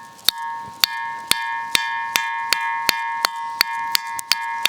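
Ringing rock (a 'nagada' drum stone) struck over and over, about two to three sharp strikes a second, each ringing on with a steady metallic tone, like beating an iron girder or an empty steel vessel. The speaker takes the ringing to come from iron in the rock.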